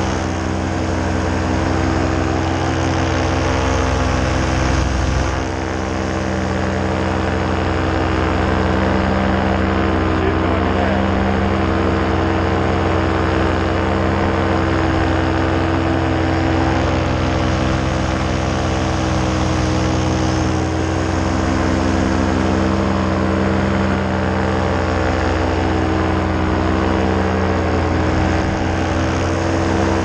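Paramotor engine and propeller running steadily at cruise power in flight, the drone wavering slightly in pitch and easing briefly about five seconds in.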